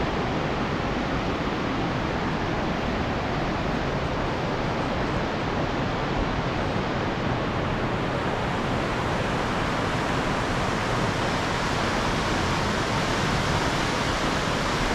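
Kootenai Falls rushing: a steady, even hiss of white water with no breaks or changes.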